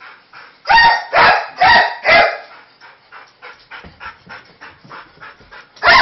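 A Weimaraner barking in alarm at fireworks: four loud barks in quick succession about a second in, and another just before the end, with fainter short sounds in between.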